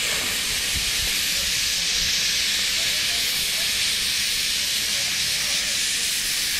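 Steam locomotive blowing steam from its open cylinder drain cocks, a loud, steady hiss with no exhaust beat.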